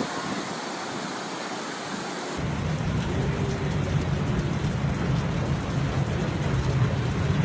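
A steady rushing noise, then after a cut about two seconds in, heavy rain pouring and pattering close to the microphone, louder and with a deep rumble underneath.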